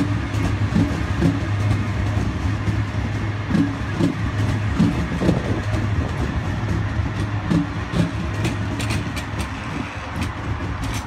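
Sydney Trains Waratah (A set) electric double-deck train running out of the station past the platform: a steady low hum, with a run of low thumps as the wheels cross rail joints. It fades slightly near the end as the rear cars go by.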